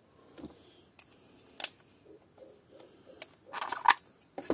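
Small clicks and a light rattle of metal and hard plastic as a screwdriver bit is picked from a moulded tool case and a cordless drill's detachable keyless chuck is taken off. There are a few isolated sharp clicks and a short cluster of clatter about three and a half seconds in.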